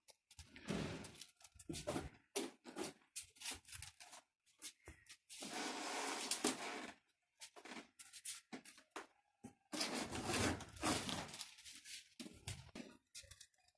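Packaging being handled and unpacked, with irregular bursts of rustling and tearing noise. Longer stretches come at about five to seven seconds in and again around ten seconds.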